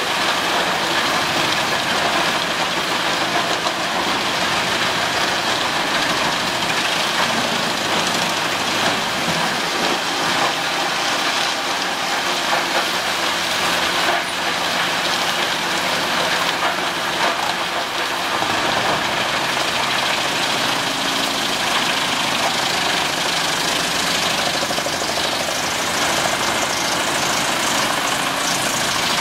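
Truck-mounted Eschlböck drum chipper chipping big logs fed in by a crane: a dense, steady noise of the drum cutting wood over the running engine, holding an even level.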